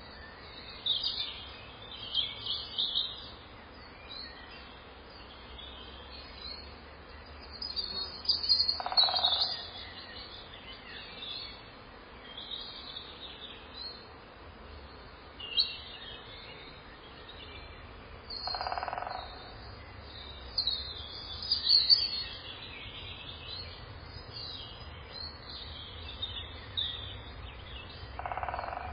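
Birds chirping, with many short high chirps scattered through, over a low steady rumble. A short mid-pitched sound recurs about every ten seconds, three times.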